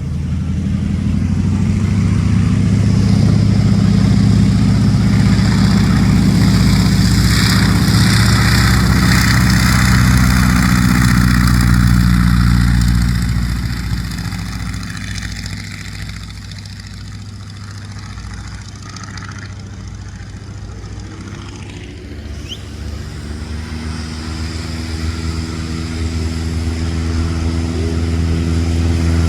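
Piston engine of a propeller aircraft running with a steady note. It is loud for the first dozen or so seconds, drops off to a lower level, then builds again toward the end.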